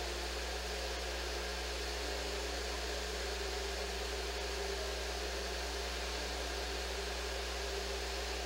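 Steady room noise: a constant low hum with an even hiss over it and no distinct events, the background drone of a fan or air-handling system picked up by a live webcam's microphone.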